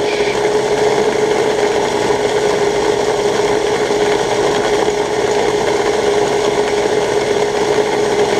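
Small Prolex electric food processor running steadily at one speed, its blades chopping onions to a pulp: a constant motor whine over the whirring of the chopped onion.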